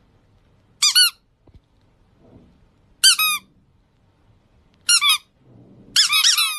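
Four short bursts of high-pitched squeaks, each a quick run of two or three chirping notes, with near quiet between bursts; the last burst is the longest.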